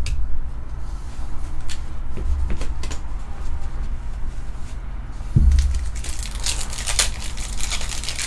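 Hands handling and tearing open a 2021 Bowman baseball card pack: scattered clicks and light rustles, a low thump about five seconds in, then a dense crinkling of the pack wrapper near the end.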